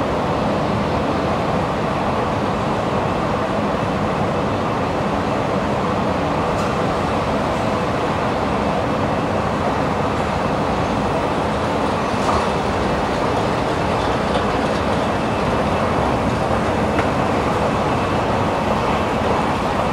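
Metro station escalator running: a steady mechanical rumble from its moving steps and drive, with a faint steady high whine over it.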